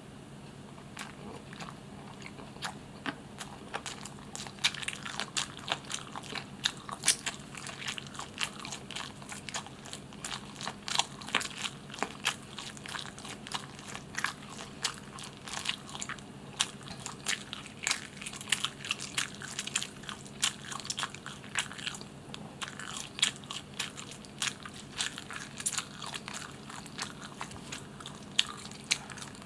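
Close-miked eating of barbecued chicken: a stream of crunchy bites and wet chewing, with sharp crackles of crisp skin several times a second, over a steady low hum.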